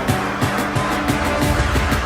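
Loud music with a heavy, steady bass beat.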